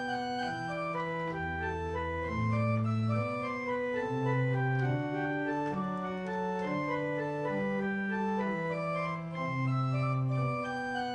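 Church pipe organ played in sustained chords over a low bass line, the notes held steady and changing every half-second to a second.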